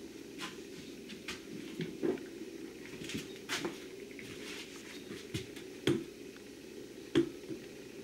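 Scattered short knocks and clicks of handling, with the loudest about three and a half, six and seven seconds in, over a steady low hum.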